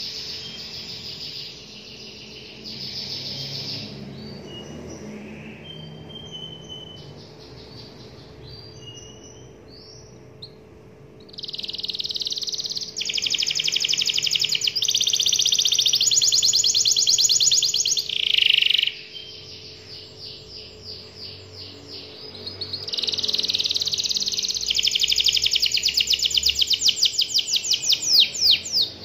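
Domestic canary singing a long, fast rolling song of dense trills, softer and broken in the first third, then loud sustained rolls through the middle and again over the last several seconds.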